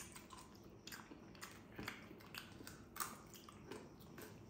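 People chewing and biting grilled meat close to the microphone: irregular soft mouth clicks, a few each second, the loudest about a second in and about three seconds in.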